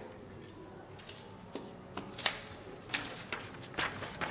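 Paper sheets being handled and peeled off a wall, rustling and crackling in a run of short sharp sounds that start about a second and a half in.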